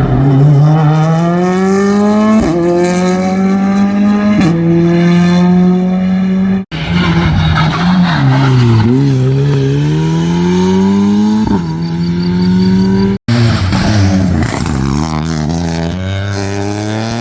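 Rally car engines accelerating hard through the gears, the pitch climbing and dropping back at each upshift. Three separate runs are cut together; in the second, the engine slows and then pulls away again.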